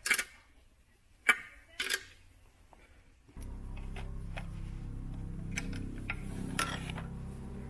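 Sharp metal clinks of a wrench on nuts as a steel mounting plate is bolted onto a diesel parking heater. About three seconds in, a steady low hum starts, with light clicks over it as a hose clamp and duct are handled.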